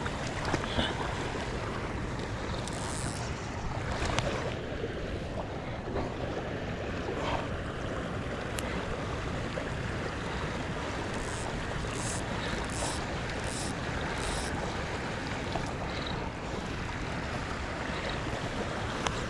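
River water rushing steadily, with wind buffeting the microphone. A run of five faint, brief hissing sounds comes about two-thirds of the way through.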